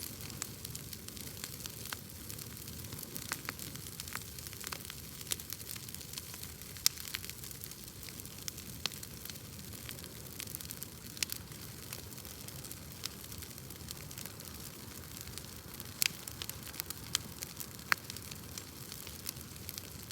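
Wood fire crackling: a steady hiss of burning with irregular sharp pops and snaps, a few louder ones about seven seconds in and near the end.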